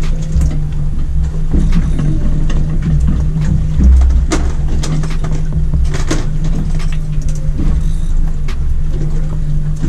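Boat's outboard motor running at idle with a steady low hum, wind buffeting the microphone in gusts, and scattered sharp clicks and knocks.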